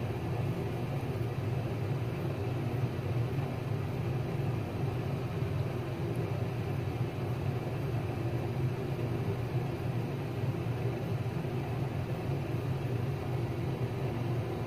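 Steady low background hum and rumble with a faint hiss, even throughout with no distinct knocks or clicks.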